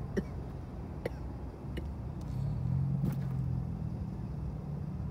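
Low, steady engine rumble that swells slightly near the middle, with a few faint scattered clicks.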